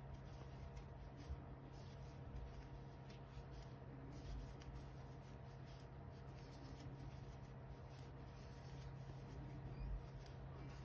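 Faint rustling and scratching of a metal crochet hook drawing cotton-blend yarn through stitches, over a steady low hum.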